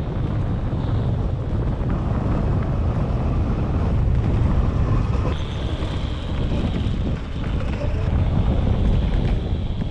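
Onboard a Zero DS electric motorcycle on the move: wind buffets and rumbles on the camera microphone. A thin, steady high whine from the electric drive comes in about halfway through.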